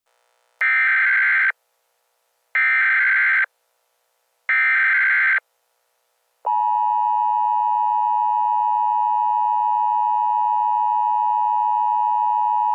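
Emergency Alert System SAME header: three identical one-second bursts of data squawk about a second apart, then the EAS two-tone attention signal starting about six and a half seconds in and holding steady. Together they announce that an emergency alert voice message follows.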